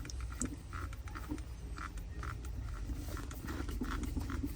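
Faint handling noises: scattered small clicks and rustles over a low steady rumble.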